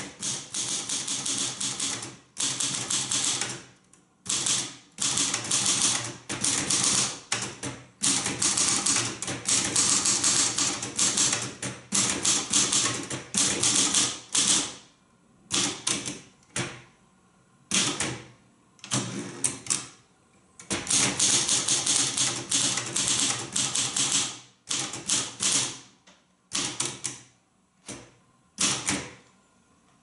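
Manual typewriter being typed on: quick runs of key strikes with the typebars hitting the paper, broken by short pauses. In the last third the runs get shorter and the pauses longer.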